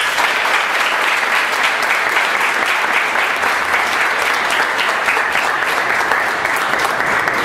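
Audience applauding steadily, a dense patter of many hands clapping, dying away near the end.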